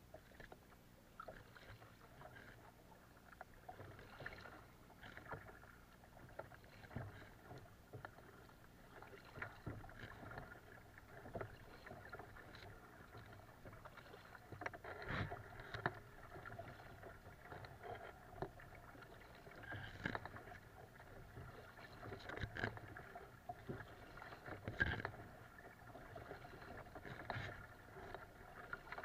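Double-bladed paddle stroking through lake water: faint, rhythmic splashes and drips about every two seconds as a small boat is paddled along.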